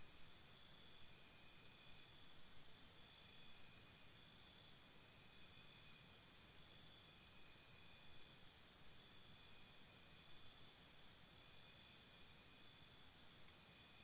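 Faint crickets chirping: runs of evenly repeated high pulses, about four or five a second, that stop and start again every few seconds over a soft hiss of outdoor background.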